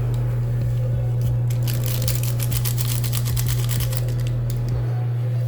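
Gelatin powder pours from its sachet into hot water, a rapid fine crackling rustle that lasts a couple of seconds in the middle, over a steady low hum.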